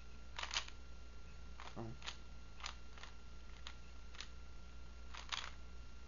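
Faint, irregular light clicks, about ten of them, a couple coming in quick pairs, over a steady low hum.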